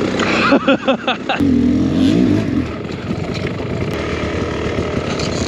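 Two-stroke Beta X-Trainer 300 dirt bike engine running, revving up and back down about two seconds in, then running steadily while riding a trail.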